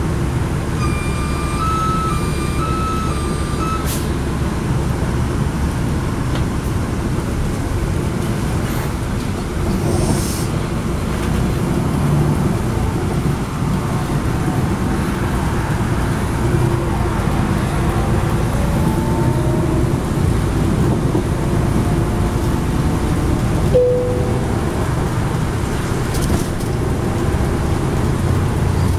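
Inside a 2010 NABI 40-SFW transit bus moving at highway speed: steady rumble of its Cummins ISL9 diesel engine with tyre and road noise. About a second in, a short electronic tune of alternating beeps plays for a few seconds, and a brief beep sounds near the end.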